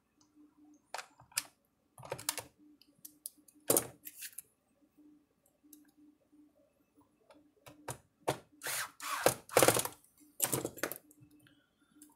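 Irregular clicks and clatter of a screwdriver and small parts on a workbench as screws are driven down on the capacitor clamps inside an electric fence charger, with a run of louder clattering about three quarters of the way in.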